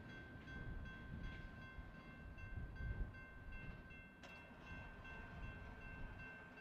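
Railroad crossing warning bell ringing faintly in a steady repeating pattern over a low rumble. A single sharp click about four seconds in comes as the crossing gate arm starts to rise.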